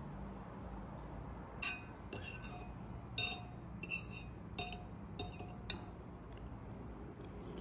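A metal fork and spoon clinking against a ceramic bowl while the last of a creamy pasta is scooped up: about seven short, ringing clinks between about two and six seconds in.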